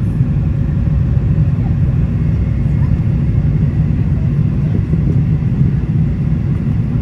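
Steady, loud low rumble of a Boeing 777-300ER's GE90 engines and airflow, heard inside the passenger cabin.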